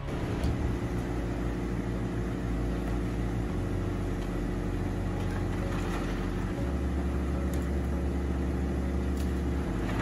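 Industrial wood grinders running under load: a steady heavy diesel engine drone with the grinding rush of wood being chewed up, and a few sharp cracks of wood. The deep hum shifts pitch twice.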